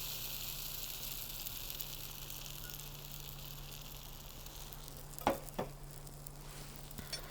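Farinata batter of chickpea flour and water sizzling in a hot skillet, the hiss slowly dying down. Two light knocks come about five seconds in.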